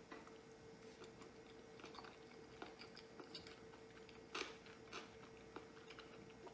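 Faint chewing of a sushi roll close to the microphone, with soft wet mouth clicks, a little louder about four and a half and five seconds in, over a faint steady hum.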